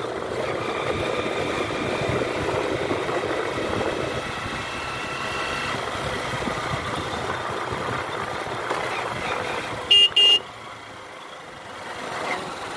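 Motorcycle running along the road, its engine mixed with wind and road noise. About ten seconds in come two short, loud horn toots, and the engine noise then drops off for a second or so before it picks up again.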